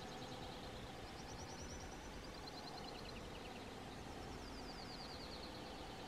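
Subalpine warbler singing faintly: three short bursts of rapid high notes that slide downward, a second or more apart, over a faint steady background hum.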